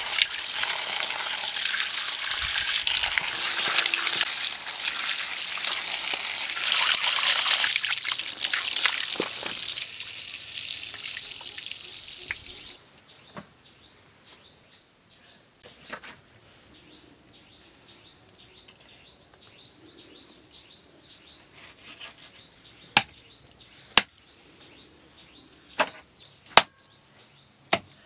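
Running water pouring and splashing over vegetables in a bamboo basket as they are washed by hand; it fades out after about ten seconds. Then it is quieter, with faint bird chirps, and in the second half a few sharp single strikes of a knife cutting through mutton ribs on a chopping block.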